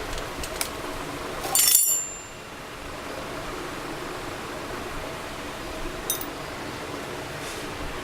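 A short, bright clink with a brief high ring about one and a half seconds in, over a steady hiss, with a few faint ticks.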